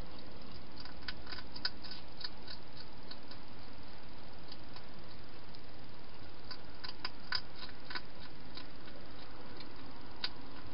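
Wild hedgehog eating from a bowl inside a clear plastic feeding box: irregular crisp clicks of chewing, in two bursts with a lone click near the end.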